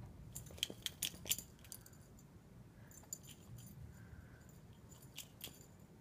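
A dog rooting and digging in deep snow: faint clusters of sharp clicks and crunches, the first and loudest run about half a second to a second and a half in, more near three seconds and again about five seconds in.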